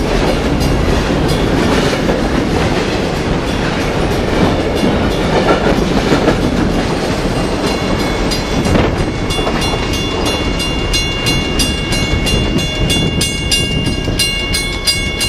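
Canadian Pacific intermodal train's double-stack container cars passing at speed, a dense rolling rumble and wheel clatter. After the cars clear, the noise carries on, with a rapid, regular high-pitched ringing in the last few seconds.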